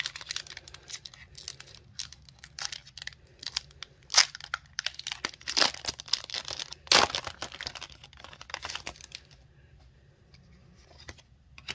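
Foil wrapper of a Pokémon trading-card booster pack being torn open and crinkled as the cards are pulled out, crackling irregularly with a few louder rips. It dies down about nine and a half seconds in.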